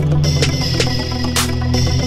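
Background music: sustained low notes, with a short hissing percussion hit about every one and a half seconds.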